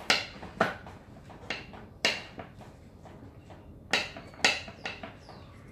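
Kitchen knife chopping peeled garlic cloves on a wooden cutting board: about eight sharp, uneven knocks, with a pause of over a second near the middle.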